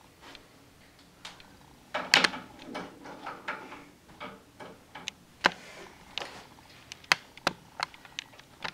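Scattered sharp clicks and light knocks from dry-erase markers being handled at a whiteboard: caps snapped off and on, and markers picked up and set down. There is a burst of handling noise about two seconds in, and the clicks come more often in the second half.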